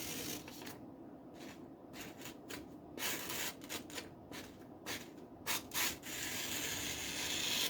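Knife edge cutting phone book paper: a series of short scratchy paper rustles, then a longer slicing hiss near the end. The freshly stropped edge only barely push-cuts the paper but slices it.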